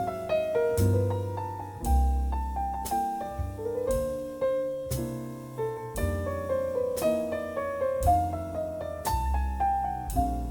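Background music: a jazz ballad's instrumental break, with a piano playing the melody over a bass line.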